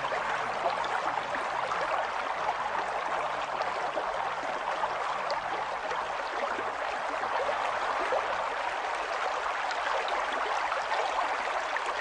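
Steady sound of running water, with a fine crackle of droplets.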